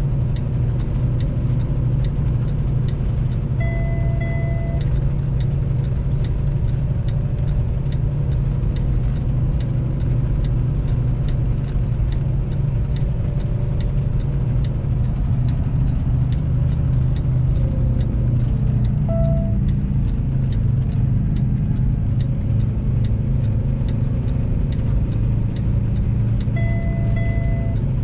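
A semi truck's diesel engine running steadily under load, heard from inside the cab, with a light regular ticking over it. A short electronic beep sounds twice, about four seconds in and again near the end.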